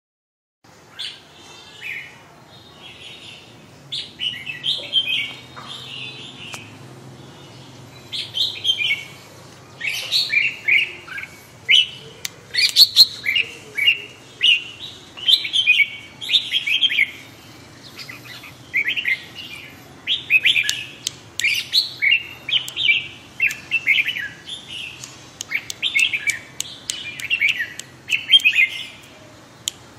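Red-whiskered bulbul singing short, chirpy warbled phrases over and over.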